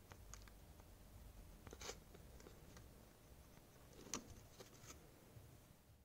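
Near silence with a few faint clicks and light scratching: loose Akko Vintage White linear keyboard switches being handled and pressed by hand. The loudest click comes about four seconds in.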